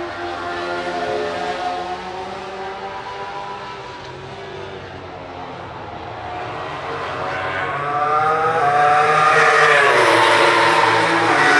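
Racing motorcycle engines on the main straight. At first one bike's note is heard fading off. Then another approaches, its engine note rising as it accelerates, and passes loudly about ten seconds in, its pitch dropping as it goes by.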